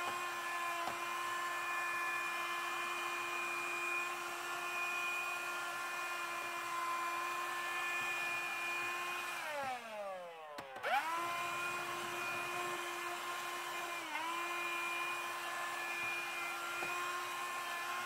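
CLEANmaxx cordless cyclone hand vacuum running with a steady motor whine while its small brush nozzle works a car's carpet floor mat. About halfway through it is switched off and the motor winds down, then it is switched back on and spins quickly up to speed again.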